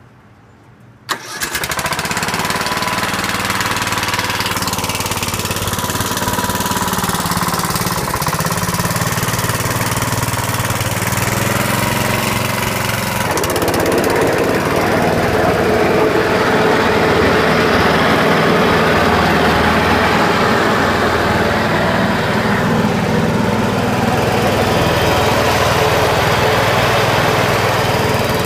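Dixon ZTR45 zero-turn mower's 17.5 hp Briggs & Stratton engine starting about a second in, then running steadily; about halfway through the sound grows fuller and a little louder. The deck has a little spindle bearing noise once the mower is running.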